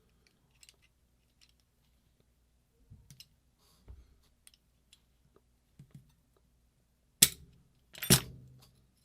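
Small metal tools and parts being handled on a workbench: scattered light clicks and taps, then two sharp metal knocks about a second apart near the end, as a tool slips on a stuck, Loctited part.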